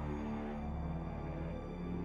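Background music of sustained, held low notes over a steady low drone, with the notes changing every half second or so.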